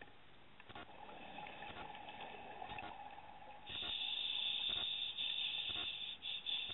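Underwater audio of a scuba diver's breathing through the regulator: a steady faint hiss, then a louder rush of exhaled bubbles starting about four seconds in and lasting a couple of seconds, with faint scattered clicks.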